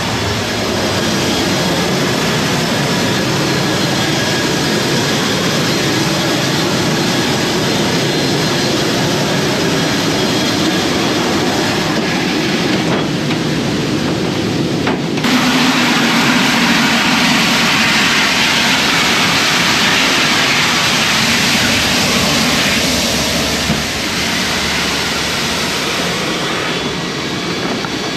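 Jet engines of a C-17 Globemaster III running: a loud, steady noise with a faint high whine. About halfway through it turns suddenly brighter and hissier.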